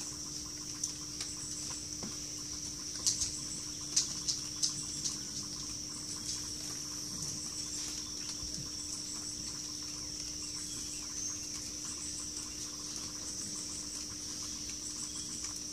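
Steady high-pitched outdoor chorus of wildlife over a low steady hum, with a few sharp clicks about three to five seconds in.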